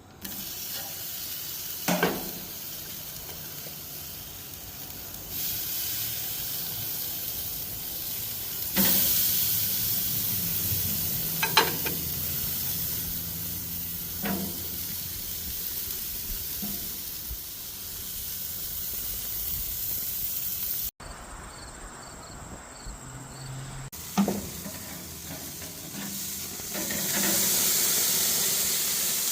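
Meat sizzling on a grill: a steady hiss of fat and juices frying, with a few short sharp clicks now and then. The sizzle drops off abruptly about two-thirds of the way through and then picks up again.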